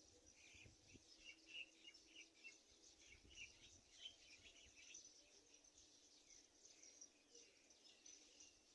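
Faint bird chirping, many short notes coming thickest in the first half, over a steady high insect drone.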